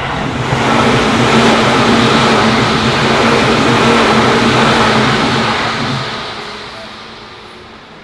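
Electric commuter train of the Seibu Ikebukuro Line passing over a level crossing: a loud rumble of wheels on rails that swells within the first second, holds for several seconds with a steady low hum, then fades as the train moves away.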